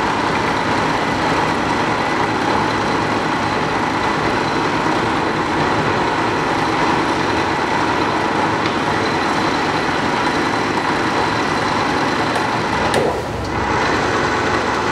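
South Bend 13-inch by 40-inch toolroom lathe running under power at one of its belt-drive spindle speeds: a steady mechanical whir with a faint whine. The sound dips briefly about thirteen seconds in.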